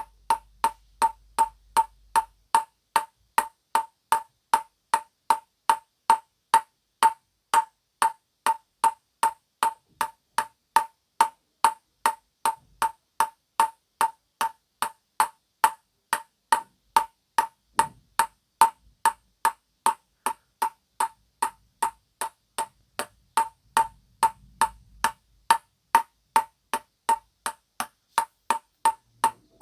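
Ping-pong ball bounced again and again on a table-tennis paddle, an even run of sharp hollow pings at about three a second, each ringing briefly.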